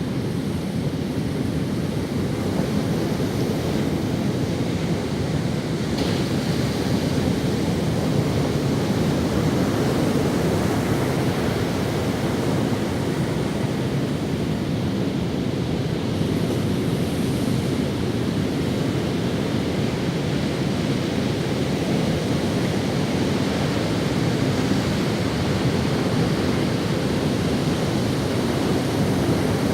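Ocean waves washing on a sandy beach, a steady continuous surf noise with slight swells, with some wind on the microphone.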